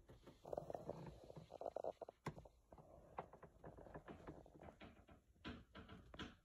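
Faint handling noise: light rustling and irregular small clicks, with one sharper click a little over two seconds in.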